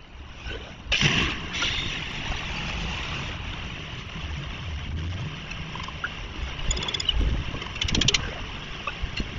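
Street traffic noise with a vehicle engine passing, and a brief rapid rattle near the end.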